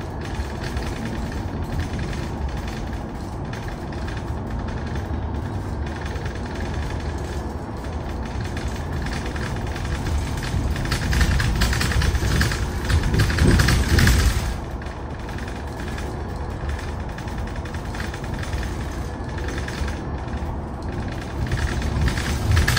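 Cabin sound of a Mercedes-Benz eCitaro battery-electric articulated bus on the move: a steady road and running rumble with faint steady tones from the electric drive. It swells for a few seconds about halfway through, then settles back.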